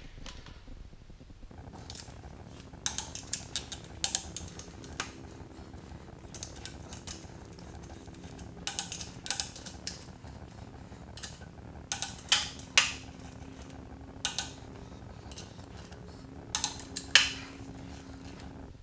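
Metal tools clinking and clicking against the main bearing cap bolts and block of a Ford 351 Windsor V8, as a socket and long torque wrench are handled. The clicks come in bunches a few seconds apart.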